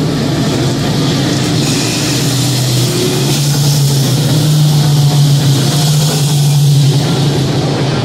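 Dirt-track race cars running at speed on the oval, a loud steady engine drone from several cars. The drone grows stronger and a little higher from about three seconds in, then eases near the end.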